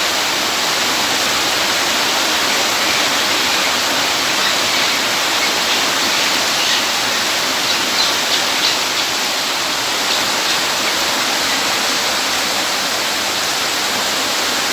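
Steady rushing water, like a waterfall or fast stream, with a few faint high ticks a little over halfway through.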